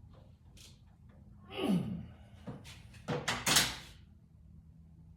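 A creak falling in pitch about a second and a half in, then a few heavy thunks about a second later, as of something solid being knocked or shut.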